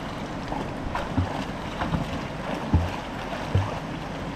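Water and wind noise on the microphone by the water's edge, with a few short low thumps.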